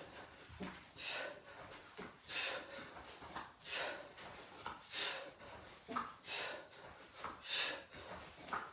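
A man breathing hard and forcefully through bicycle sit-ups, one sharp exhale about every second and a half, in time with the reps.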